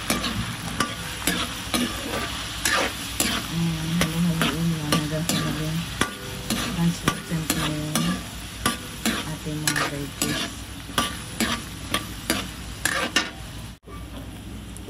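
Metal ladle stirring diced carrots, potatoes, bell pepper and green peas sautéing in oil in a steel wok: a steady sizzle of frying with frequent clinks and scrapes of metal on metal.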